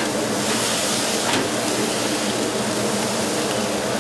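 Steady rushing noise of a commercial restaurant grill, with meat sizzling on the hot grill bars, and a light knock about a second in.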